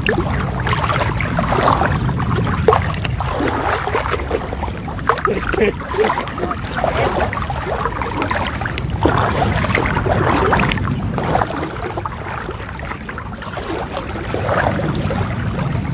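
Water sloshing and swishing as people wade waist-deep through floodwater, in uneven surges, over a steady low rumble.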